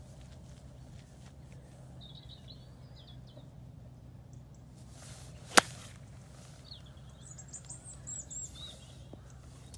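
Golf iron striking a ball once: a single sharp crack about halfway through. Birds chirp before and after it.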